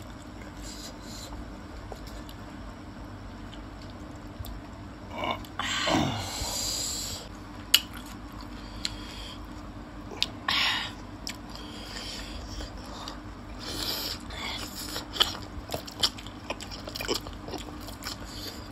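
Close-miked eating sounds: chewing, with crisp crunches and sharp clicks scattered through as pani puri shells are bitten, and a few louder mouth noises, one about six seconds in and one about ten seconds in.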